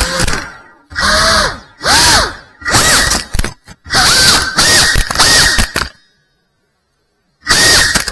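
Brushless motors and propellers of a GEPRC Cinelog FPV quadcopter whining in repeated throttle bursts, the pitch swooping up and down with each punch and chop. The sound drops out completely for over a second near the end, then comes back with another burst.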